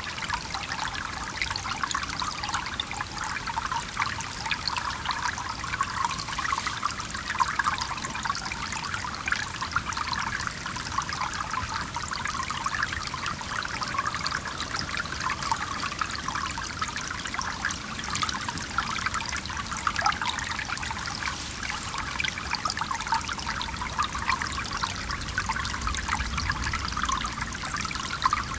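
Small stream running over rocks, a steady bubbling, trickling flow. A faint low rumble swells slightly near the end.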